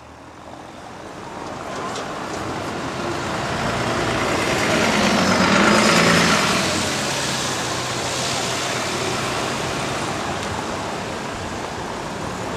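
Street traffic noise that swells up over the first couple of seconds. A bus passes close by, loudest about six seconds in, with its engine running and its tyres on the road, then the traffic settles to a steady level.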